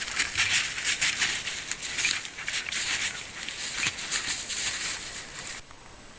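Footsteps crunching and rustling through dry leaf litter and old crusty snow, with brush brushing past; the crunching stops shortly before the end.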